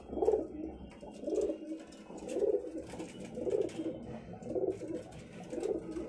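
Domestic pigeons of the Kabli and Madrasi breeds cooing in a small room, a low coo repeating about once a second.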